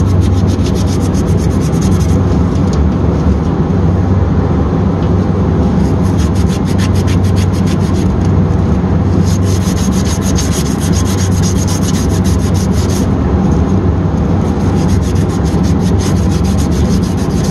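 Sandpaper rubbing back and forth on copper refrigerant tubing to clean it before the solder joint is heated. It comes in bursts of rapid strokes, the longest in the middle, over a steady low hum.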